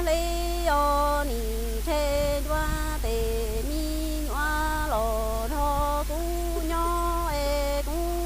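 A woman singing Hmong kwv txhiaj (sung poetry) unaccompanied, in long held notes that step up and down in pitch with short breaks between phrases.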